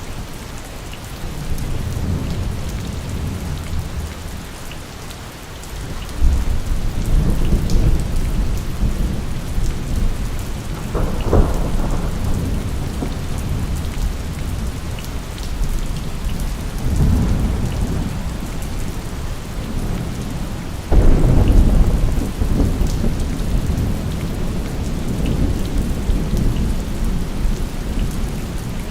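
Steady heavy rain with thunder rumbling through it; two sharp, louder thunderclaps break in about six seconds in and again about three quarters of the way through, each trailing off into a low rumble.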